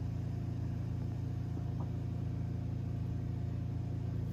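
A steady low hum with no change, with a faint tick or two.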